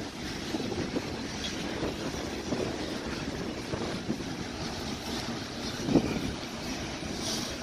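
Loaded covered hopper cars of a freight train rolling past. Steel wheels on the rail give a steady rumble, with irregular clanks and clicks and one louder knock about six seconds in.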